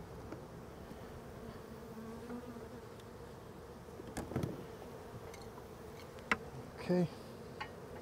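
Honeybees from a disturbed colony buzzing steadily in the air around the hive. One bee passes close, louder for a moment about four seconds in, and there is a sharp click a little after six seconds.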